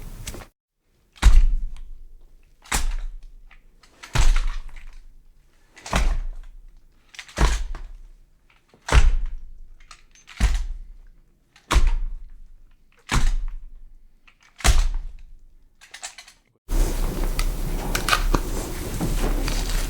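A slow series of about ten heavy thuds, one every second and a half or so, each dying away with a short boom. Near the end the thuds stop and a steady hiss-like noise begins.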